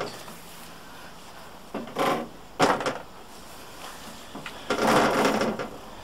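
Ooni Karu stainless steel pizza oven being turned around on a metal worktop: its legs scrape and knock against the table, with a short scrape about two seconds in, a knock just after, and a longer scrape near the end.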